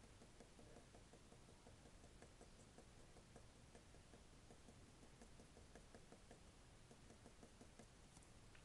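Near silence: faint room tone with light, rapid ticking.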